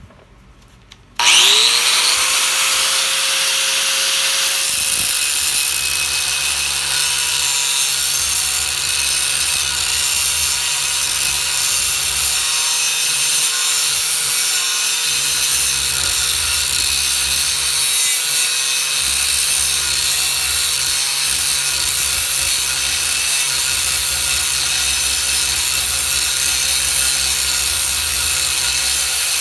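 DeWalt angle grinder with a cutting wheel started about a second in, its motor whine rising quickly to a steady pitch. It then runs continuously with a loud hiss as the wheel cuts a patch piece out of scrap steel.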